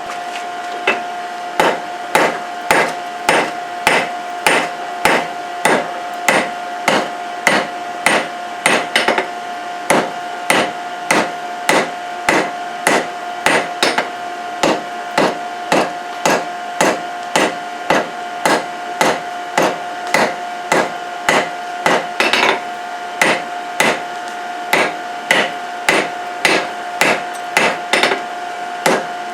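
Hammer blows on a hot forge-welded steel billet on an anvil, about two strikes a second in a steady rhythm, with a steady ringing tone underneath: the billet being drawn out by hand forging.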